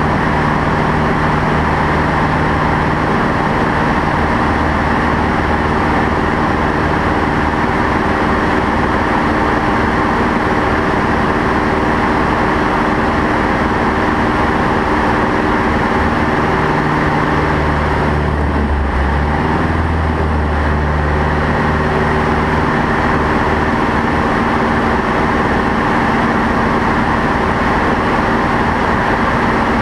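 Light aircraft's engine and propeller droning steadily in the cockpit over a rush of air. A little past halfway the low engine tones shift and briefly dip, then settle again.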